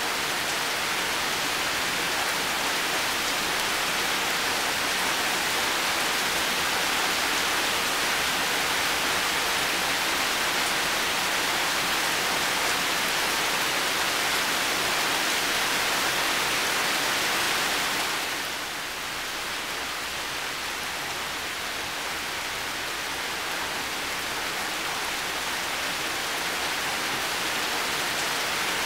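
Heavy rain falling steadily, a dense even hiss. Its level drops a little about two-thirds of the way through, then slowly builds back up.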